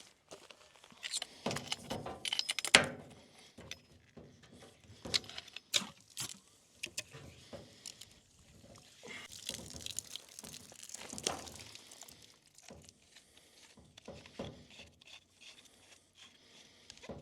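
Irregular knocks, scrapes and gritty crunches of dirt and concrete mix being packed in around a freshly set post, with a louder cluster of knocks in the first few seconds.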